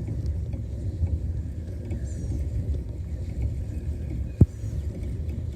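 Steady low rumble of wind buffeting the microphone, with a single sharp knock of the handheld camera being handled about four and a half seconds in.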